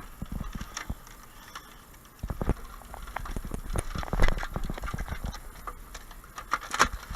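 Irregular knocks and taps at an uneven pace, with a cluster of sharper ones about two seconds in and more near the end.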